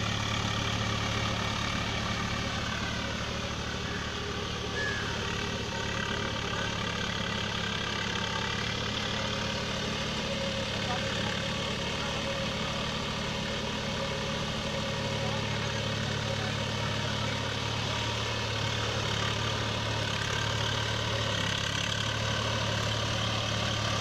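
Swaraj 744 FE tractor's three-cylinder diesel engine running steadily under load, driving a rotavator that churns a waterlogged field for paddy puddling.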